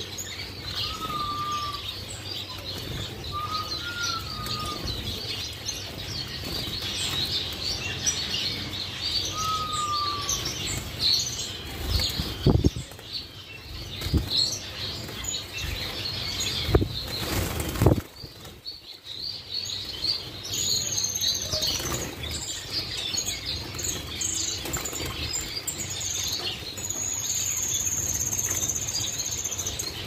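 A group of young parrot finches in a wire cage twittering with many high chirps, and a few short whistled notes early on. Wings flutter as birds fly between perches, with several louder bursts of flapping about halfway through.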